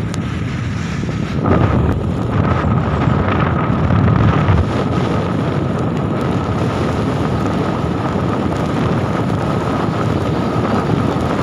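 Wind rushing over the camera microphone as a road bicycle rolls along, with a faint steady whine; the rush grows louder about a second and a half in.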